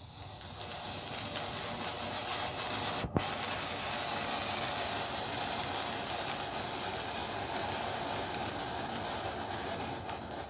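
Ground firework fountain spraying sparks: a steady hissing rush that builds over the first second or two and then holds, with one sharp pop about three seconds in.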